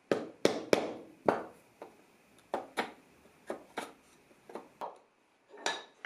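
Mallet striking a chisel into walnut, four sharp blows in the first second and a half. These are followed by lighter, irregular clicks as the chisel is pushed into the wood by hand.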